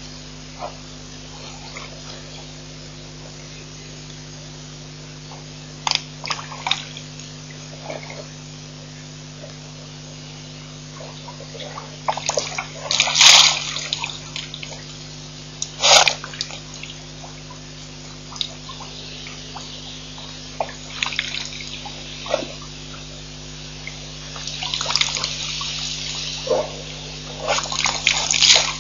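African elephant drinking at a waterhole: irregular bursts of splashing and gushing water as it draws water up its trunk and empties it into its mouth, loudest about halfway through and again near the end, over a steady low electrical hum.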